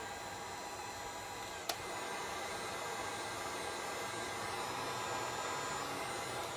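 Steady whirring of a small motor or blower, with a single sharp click a little under two seconds in; the whir stops abruptly at the end.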